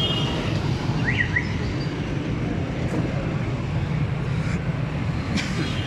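Street traffic noise: a steady hum of engines, with a short two-note chirp about a second in and a couple of faint clicks.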